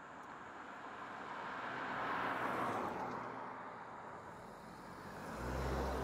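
A minivan driving past on a paved road: tyre and engine noise swells to a peak about halfway through, then fades. Near the end, a low engine hum from another car close by sets in.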